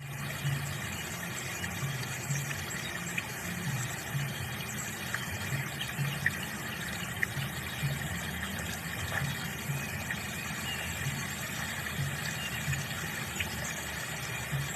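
Nature ambience: faint, brief bird chirps scattered over a steady low throb that pulses about twice a second.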